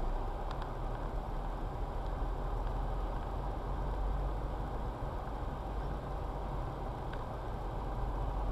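Steady low rumble of a car's engine and road noise heard inside the cabin through a dashcam's microphone, with a couple of faint clicks; it cuts off suddenly at the very end.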